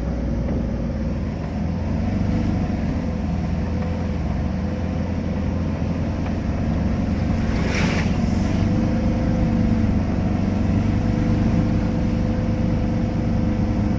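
Car interior noise while driving: steady engine hum and tyre rumble heard from inside the cabin. About eight seconds in, a brief rush of noise as an oncoming truck passes.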